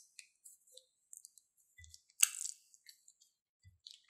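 Plastic piping bag crinkling and rustling as it is squeezed and handled, a run of small crackles and clicks with one louder crackle about halfway through.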